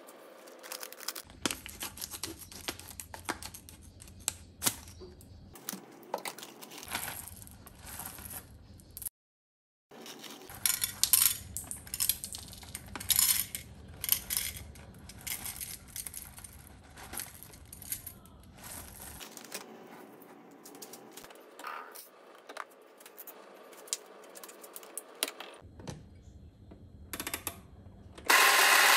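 Coffee beans poured from a paper bag rattle into a small metal cup, amid clinks of steel moka pot parts being handled and rustles of the bag. Near the very end an electric coffee grinder switches on with a sudden, loud, steady whirr.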